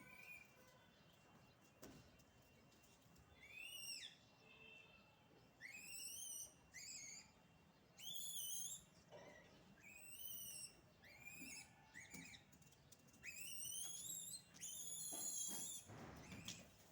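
Faint, high-pitched whistle-like calls from monkeys, short rising-and-falling cries repeated about once every second or two, with one rougher, louder call near the end.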